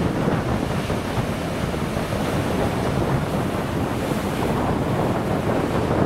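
Rough sea surf washing against the shore in a steady rush, with wind blowing on the microphone.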